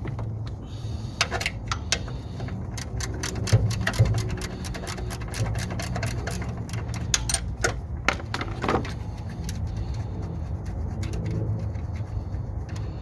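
Irregular metallic clicks and clinks from hand tools at work on the car's alternator, in small clusters, over a steady low hum.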